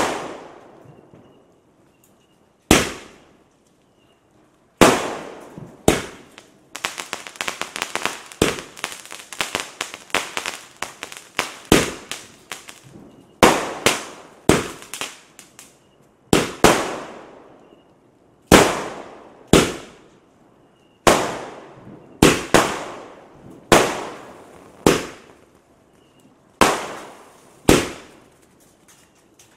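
Century Fireworks 'Sweet Secrets' 30-shot multi-colour sky shot cake firing: a string of sharp aerial bangs, one every second or two, each dying away over about half a second. From about 7 to 12 seconds in there is a dense run of rapid crackling.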